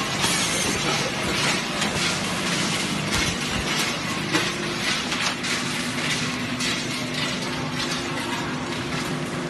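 Automatic ice packing machine running: a steady mechanical hum with scattered clicks and rattles throughout.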